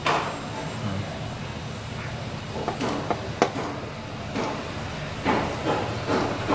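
Dough balls pressed flat by hand on a metal baking tray, the sheet tray giving light knocks and clicks as it shifts under the pressing, over a low steady hum.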